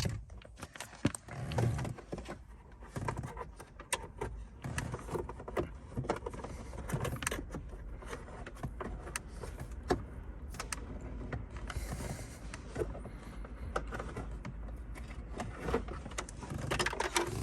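Hands working a charging cable down a gap behind plastic car interior trim: irregular clicks, taps and scrapes of plastic and wire.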